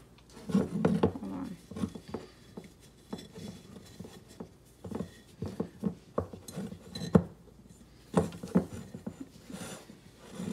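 Handling sounds of rope being tied around a ceramic pot: light, irregular clicks and knocks as the pot shifts and bumps on the countertop, with rope rubbing against it.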